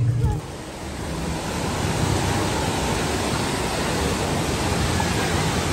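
Wave pool surf: a steady rush of artificial waves breaking and washing up the sand, mixed with the volcano's waterfalls. It swells in over the first second or so.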